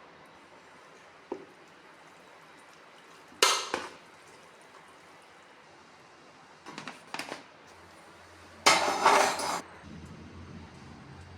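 Metal cooking pots and utensils clanking in a few separate bursts: a single tick, a loud clatter, a short run of small knocks, then the loudest clatter near the end.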